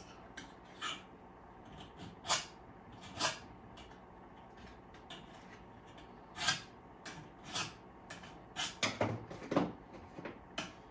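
Hand file being stroked across a garden pruner's blade to sharpen it: short, irregular scraping strokes of metal on metal, coming faster in the second half.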